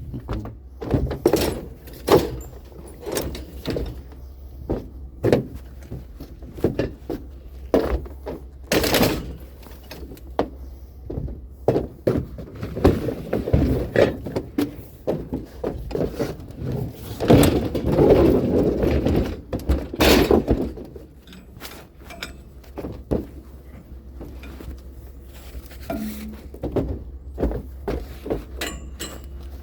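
Irregular knocks, thunks and clatter of hard objects being handled and set down, denser for a few seconds past the middle, over a steady low hum.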